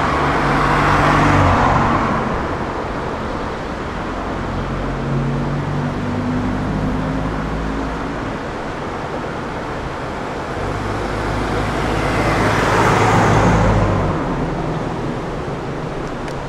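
Road traffic on a street: a Mini drives past near the start, then a Mercedes/Puch G-Class off-roader approaches and passes close about 13 seconds in, its engine and tyre noise swelling and then dropping off suddenly.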